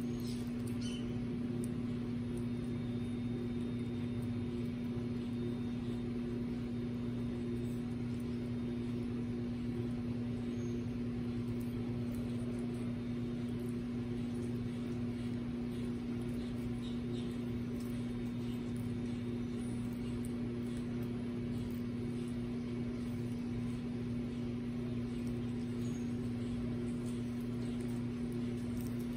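A steady machine hum with a constant low tone that does not change.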